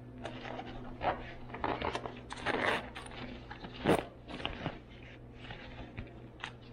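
Nylon bag being handled and unzipped: fabric rustling, scattered clicks and scrapes, and the rasp of a metal zipper being pulled, with the sharpest click about four seconds in.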